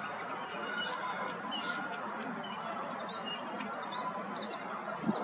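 Canada geese honking at intervals over a steady background hiss, with a few short high bird chirps about four seconds in.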